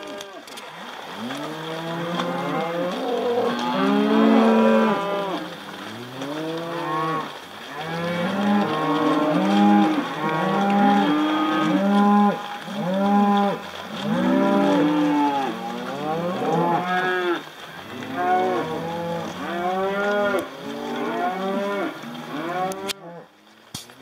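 A herd of beef cattle mooing continuously, many calls overlapping one after another. The calling drops away about a second before the end.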